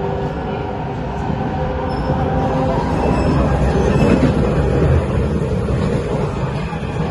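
Kawasaki-Nippon Sharyo C751B metro train running, heard from inside the car: a steady rumble of wheels on the rails, with a high whine over the first few seconds and a louder stretch around four seconds in.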